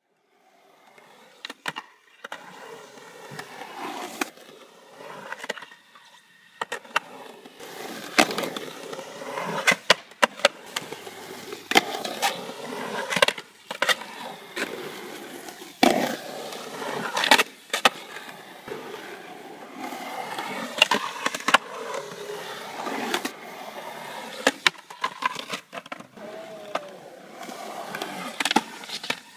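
Skateboard wheels rolling on the concrete walls of a skate bowl, the rolling sound swelling and fading as the rider carves up and down, broken by a dozen or so sharp clacks of the board and trucks hitting the concrete.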